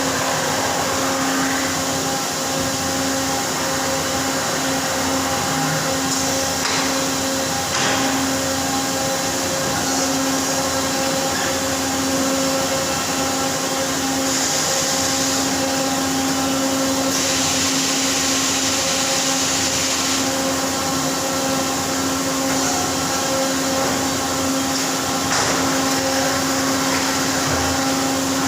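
Machinery running in a CNC machine shop: a steady hum of constant pitch over a hiss, with two stretches of louder high hissing about halfway through.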